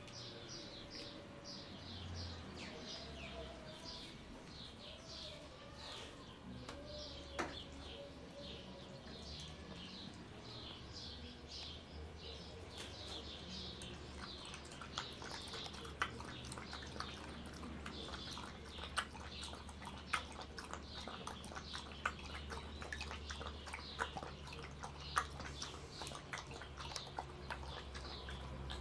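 Bird chirping over and over in short, quick falling notes, with a low steady hum beneath. From about halfway, sharp clicks come in among the chirps.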